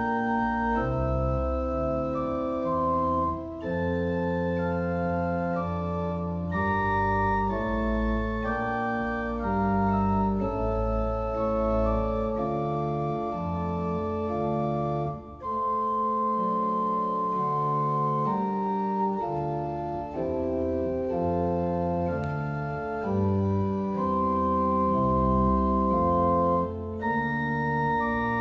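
Pipe organ playing slow, sustained chords over deep bass pedal notes, the chords changing every second or two, with a brief break about halfway through.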